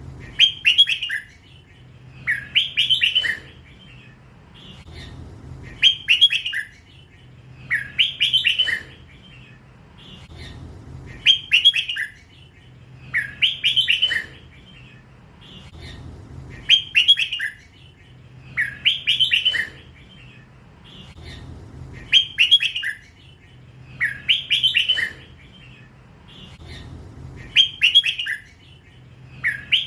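A young hybrid red-whiskered bulbul singing the same short phrase over and over, about once every two and a half to three seconds. This is the 'lak wai' (drawn-out) song style prized by Thai bulbul keepers.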